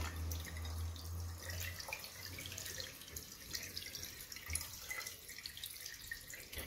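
A thin stream of water running from an upside-down wine bottle through a 3D-printed sprinkler cap into a ceramic sink, flowing smoothly because an air tube vents the bottle. Faint and trickling, growing quieter toward the end, with a low hum that stops about two seconds in.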